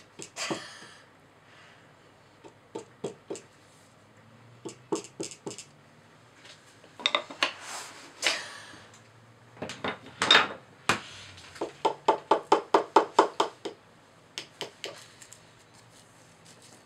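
Small digging tools tapping and scraping at a plaster block from a dinosaur excavation kit, with plaster crumbs chipping off: scattered clicks and scrapes, then a quick run of about a dozen taps about twelve seconds in.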